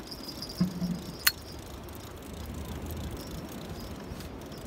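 Steady wind and sea noise, with a brief low hum and a single sharp click a little over a second in.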